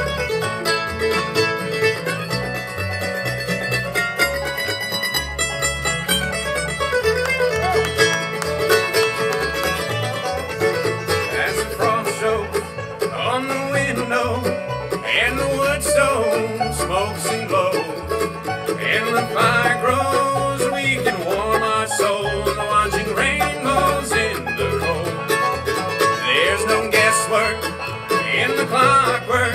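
Acoustic bluegrass band playing an instrumental break with no singing: fast banjo picking over guitar and upright bass, with sliding lead lines coming in about halfway through.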